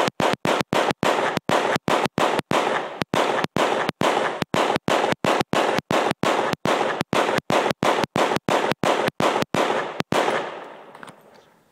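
Fireworks going off at close range: a loud, continuous rushing noise lasting about ten seconds, which dies away over the last second or so.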